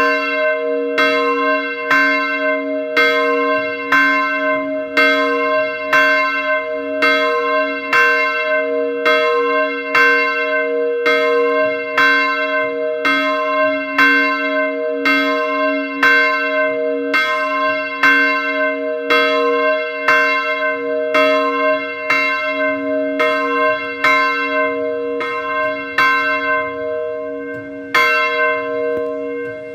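Medium-sized bronze swinging church bell, tuned to c2, tolling for noon. Its clapper strikes evenly, a little under a second apart, and each stroke rings on into the next.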